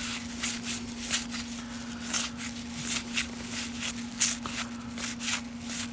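1989 Fleer baseball cards being flipped through by hand, a quick run of short papery swishes and clicks, about two or three a second, as each card slides across the stack. A faint steady hum lies underneath.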